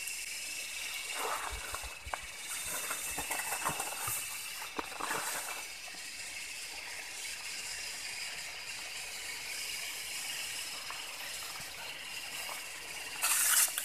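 A steady, high-pitched chorus of insects chirring in the surrounding forest, with scattered faint clicks and rustles in the first few seconds and a brief louder rustling hiss near the end.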